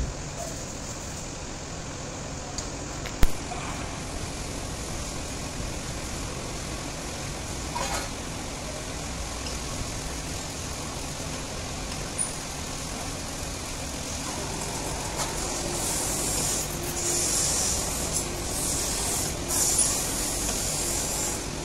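Workshop background noise with a steady low rumble, a sharp knock about three seconds in and a few lighter knocks of metal gear, then bursts of high hissing over the last few seconds.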